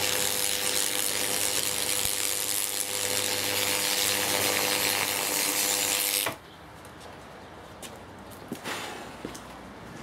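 High-voltage arc from a microwave oven transformer burning through an LED Christmas-light lead: a loud, steady buzzing hiss with a mains-like hum. It cuts off suddenly about six seconds in, leaving only a few faint clicks.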